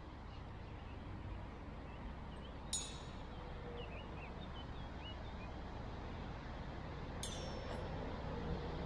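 Outdoor town ambience: a steady low rumble of distant road traffic with small birds chirping briefly in the middle. Two sharp clicks stand out, one about three seconds in and another near the end.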